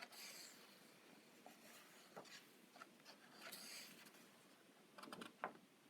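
Near silence, with faint rustles of paper pages being turned in a soft-cover coloring book and a few soft taps.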